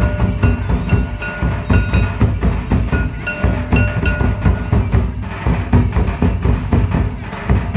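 Santali folk drum ensemble: several large barrel drums beaten with sticks in a fast, driving rhythm. Short high notes sound over the drumming in the first half.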